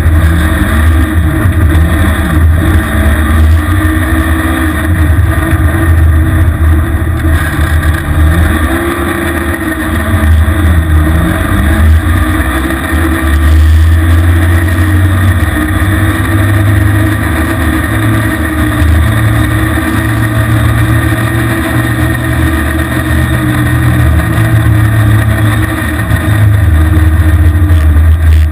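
Engine of a small red recreational vehicle running under way through deep snow, its pitch rising and falling several times as the throttle changes.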